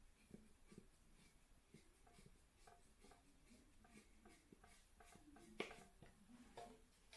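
Faint, irregular light clicks and taps from small parts being handled, with one sharper click about five and a half seconds in.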